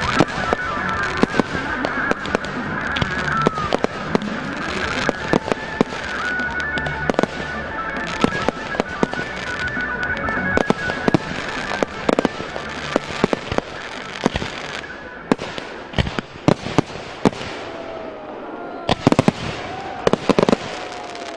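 Fireworks finale: a dense, continuous barrage of bangs and crackling from aerial shells, becoming sparser, with sharper single bangs, in the last few seconds.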